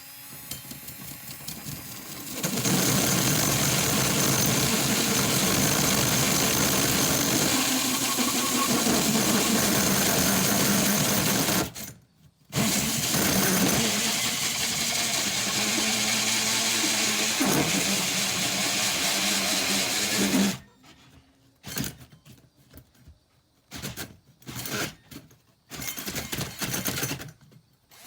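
Power drill boring the dryer-vent hole through a camper's sidewall. It runs steadily for about ten seconds, stops briefly, runs again for about eight seconds, then gives several short bursts near the end as the cut breaks through.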